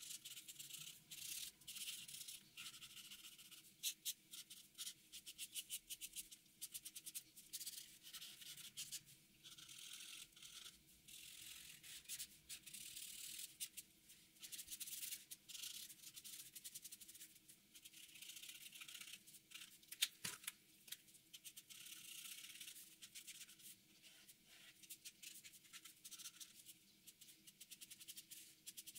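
Marker pen tip scratching and rubbing on paper in many short, quick strokes, faint, with one sharper click about twenty seconds in.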